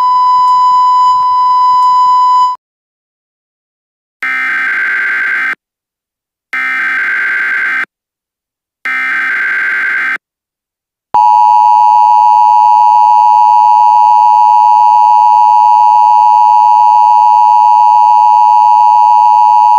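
A steady electronic beep tone stops about two and a half seconds in. After a short gap come three short bursts of Emergency Alert System SAME header data. From about eleven seconds in, the EAS two-tone attention signal sounds steadily, announcing an emergency alert broadcast.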